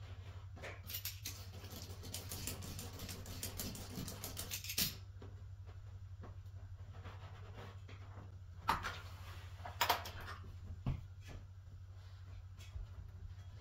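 Carpet seam iron being worked along hot-melt seam tape under two carpet edges: a few seconds of rapid crackling and scraping, then a few sharp knocks, over a steady low hum.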